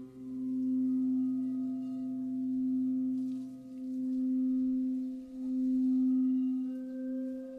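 Frosted crystal singing bowl rimmed with a mallet, a deep steady hum that swells and fades every second and a half or so. Over it a bamboo flute plays soft held notes, changing pitch a few times.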